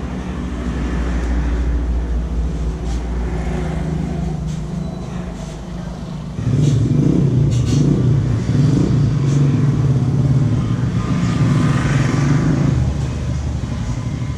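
Road traffic: a motor vehicle engine running close by, jumping suddenly louder and fuller about six seconds in and staying loud until near the end.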